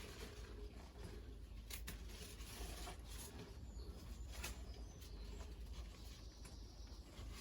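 Faint rustling of tomato plants being pruned by hand, with a few sharp clicks as stems are snipped and pulled off, over a low steady hum.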